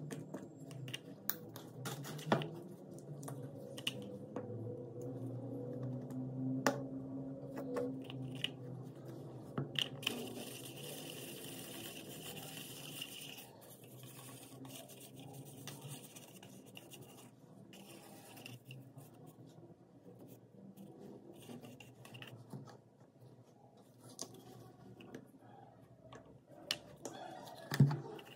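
A paintbrush stirring and scraping acrylic paint in a paper cup, a soft scratching with scattered sharp taps of the cup and paint bottles, the loudest near the end. A faint low hum sits under it in the first half.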